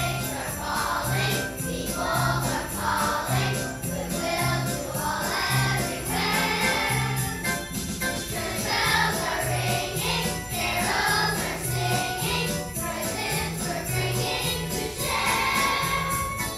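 A children's choir singing a Christmas song over an accompaniment with jingling bells and a steady bass beat.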